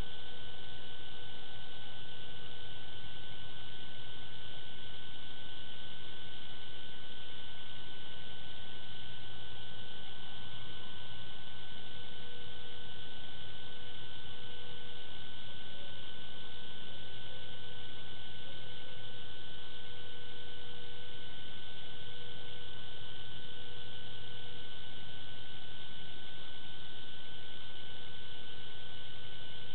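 Steady electronic hum and hiss from the recording camera's own audio, with a constant thin high tone, unchanging throughout.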